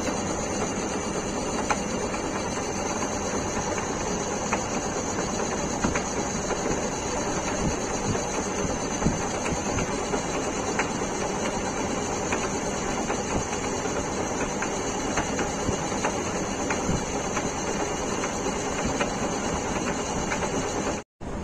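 Metal lathe running steadily while a tool cuts a thread into a shaft. A constant high whine rides over the machine noise, with scattered light ticks. The sound cuts out for a moment near the end.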